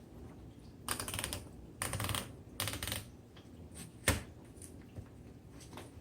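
1926 Royal Model 10 manual typewriter being typed on: three quick runs of keystrokes in the first three seconds, then a single sharp, loud strike about four seconds in, followed by a few faint clicks.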